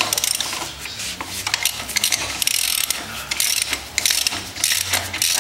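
Hand socket ratchet clicking in repeated short strokes while loosening a screw that was held with red Loctite.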